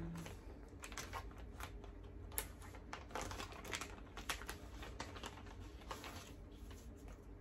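Thin clear plastic bag crinkling in small, irregular clicks and rustles as a fabric face mask is handled and pulled out of it.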